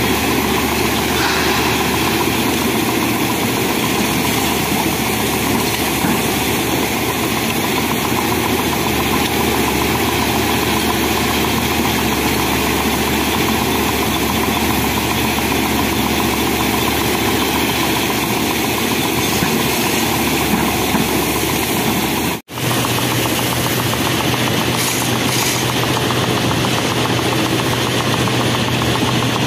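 Hyundai crawler excavator's diesel engine running steadily under load while it works. About two thirds through, the sound cuts out for an instant and comes back with a steadier low hum.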